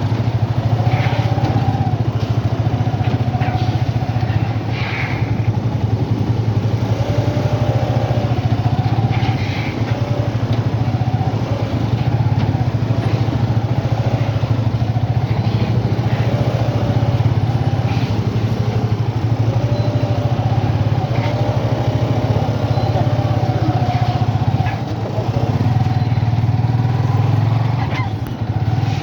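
Motorcycle engine running steadily in road traffic, a constant low drone with a few short clatters.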